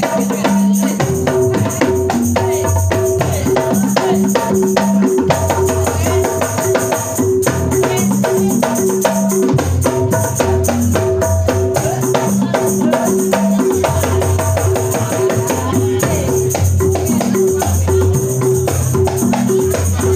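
A terbangan (hadroh) ensemble playing a fast, steady rhythm on frame drums and a darbuka, with no singing, during a sound check.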